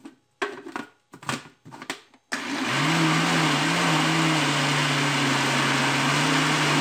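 A few short knocks, then about two seconds in a countertop blender switches on, its motor climbing to speed, wavering briefly and then running steadily as it beats eggs, sugar and oil into a liquid batter.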